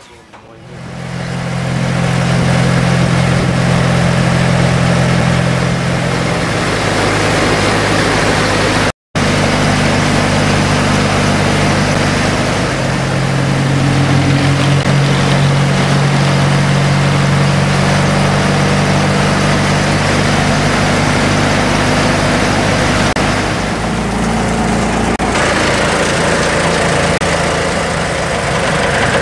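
Boat engine running steadily under way, swelling up over the first couple of seconds and shifting its pitch a few times, with a hiss of wind and water around it. The sound cuts out completely for a split second about nine seconds in.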